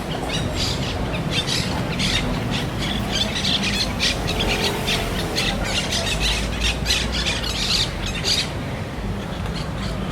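Parrots squawking in rapid, overlapping calls over a steady low rumble of city traffic; the squawking stops about eight and a half seconds in.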